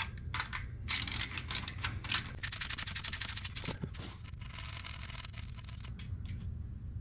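Hand ratchet clicking in quick runs of rapid, evenly spaced ticks, with metallic clinking and a short scraping rasp, as it is handled over the engine's rocker arms.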